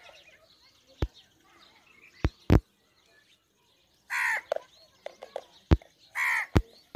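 Two loud, harsh bird calls, about two seconds apart, with several sharp knocks in between.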